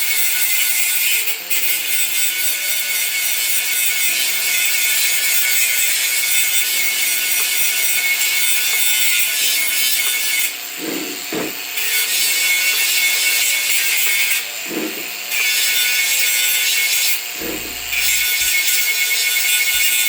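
Power grinder abrading the face of a cast-iron sot lid, a steady high grinding that stops briefly about halfway through and twice more near the end as the tool comes off the metal. Soft background music plays under it.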